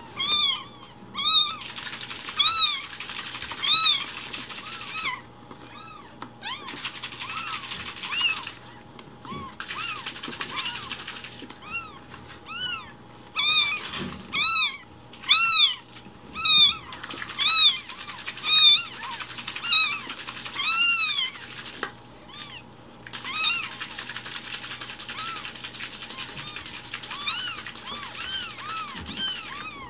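Newborn kittens mewing loudly and over and over, high-pitched cries that each rise and fall, often about one a second. They are hunger cries, the kittens demanding their milk.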